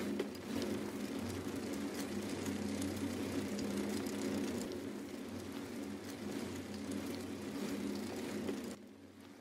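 Steady wind rush and road rumble from riding a bicycle, picked up by a camera mounted on the bike. It drops away sharply just before the end.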